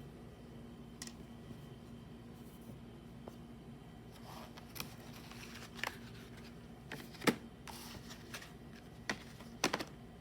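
Product packaging being handled for unboxing: scattered sharp clicks and taps with a few short rustles, the loudest click about seven seconds in, over a faint steady hum.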